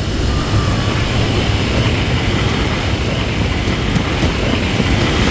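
Oil well blowing out at a wooden derrick: gas and oil venting in a steady, deep rush of noise that slowly grows louder.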